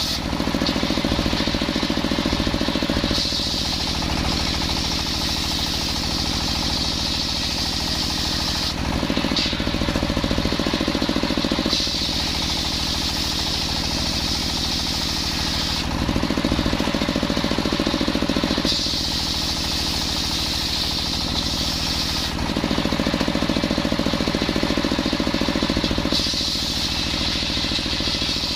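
Circular saw machine running continuously as it saws coconut-palm wood into beams. Its sound changes every few seconds as each pass through the log starts and ends.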